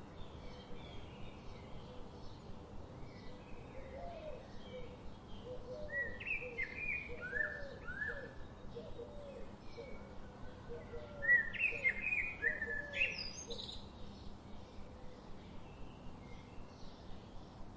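Several songbirds chirping and calling over one another in short, sliding notes, busiest and loudest about two-thirds of the way through. A lower, quickly repeated call runs through the middle, over a steady background hiss.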